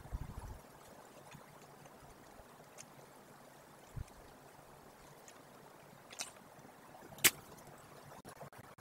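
Faint steady outdoor hiss, broken by a few low thumps at the start, a soft thump about four seconds in, and two short sharp clicks, the louder one about seven seconds in.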